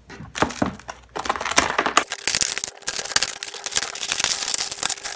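Hardened peanut brittle being snapped and broken into pieces by hand on a metal baking sheet: a dense run of sharp cracks and crackling, thickest from about two seconds in.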